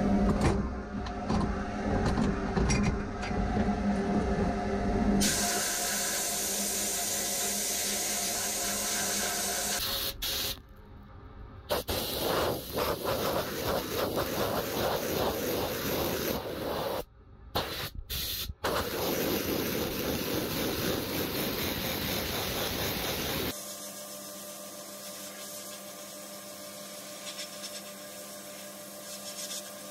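Sandblasting in a blast cabinet: the steady hiss of air and abrasive from the blast gun, starting and stopping abruptly several times. Under it is a steady hum with some clatter near the start, and the blasting is quieter over the last few seconds.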